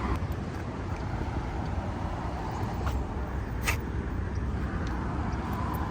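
Road traffic on a city street: a steady low rumble of passing vehicles, with one short sharp click a little past halfway.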